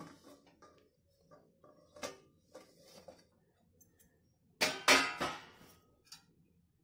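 A steel plate lid being taken off a hot kadai and handled. Light metal clinks and scrapes are scattered through it, then two loud metal clanks with a short ring a little after halfway.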